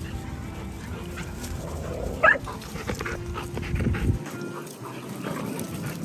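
A dog gives one short, high-pitched bark about two seconds in, over a low rumble of background noise that stops a little after four seconds.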